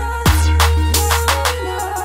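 Background music with a deep bass that drops sharply in pitch about a quarter of a second in, steady melody notes and regular percussion hits.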